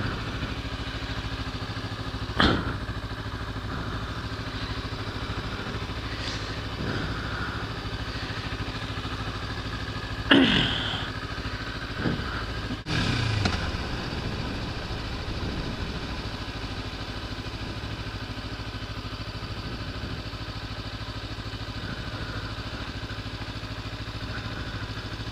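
Kawasaki Ninja motorcycle engine running steadily while riding, with a constant low hum. There are brief louder bursts about two and ten seconds in, and after the second the engine pitch falls.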